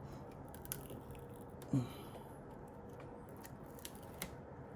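Adhesive strip being peeled slowly off an iMac's aluminium frame: a faint crackling with scattered small ticks as the tape lets go.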